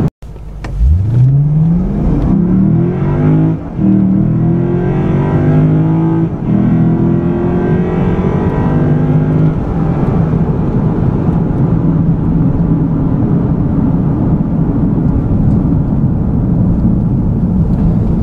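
Lexus IS F's 5.0-litre V8 accelerating hard at full throttle, heard from inside the cabin. The engine note climbs steeply, drops back twice as the 8-speed automatic upshifts, then settles into a steady drone at speed.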